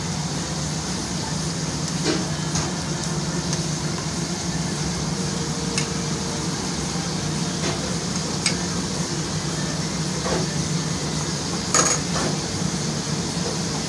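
Scattered clinks of dishes and utensils over a steady low machine hum, with a few sharp knocks; the loudest one comes near the end.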